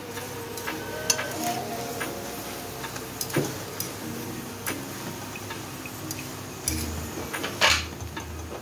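Metal tongs clicking and scraping against an iron tawa while a paratha fries on it, with a steady sizzle underneath. Several sharp clicks, the loudest near the end.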